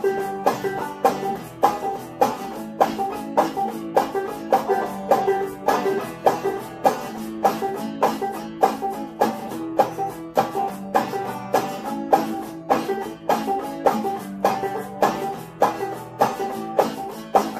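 Instrumental passage with an open-back banjo picking over a strummed guitar on a steady, even beat.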